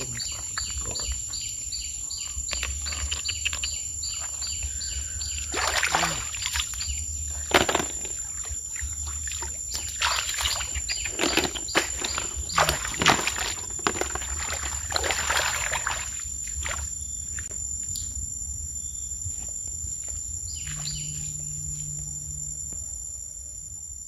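Outdoor field ambience: insects drone steadily at a high pitch, with rapid chirping at the start and bird calls, while short noisy bursts come and go in the middle, then a brief low hum near the end.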